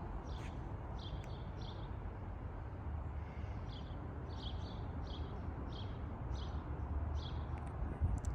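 A small bird chirping over and over, short high chirps about twice a second, over a steady low outdoor rumble.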